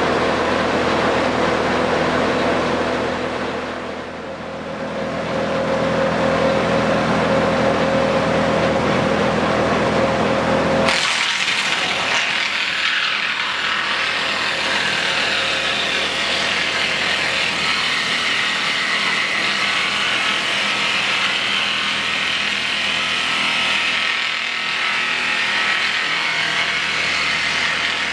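Belt-driven round rod milling machine for wood running with a steady hum. About eleven seconds in the sound changes abruptly to a steady high hiss as the cutter head shapes a wooden strip fed through the rollers into a round rod.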